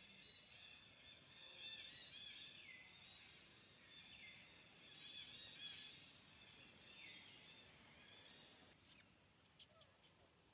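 Faint outdoor ambience of repeated high-pitched animal calls that fall in pitch, with a few sharp clicks near the end.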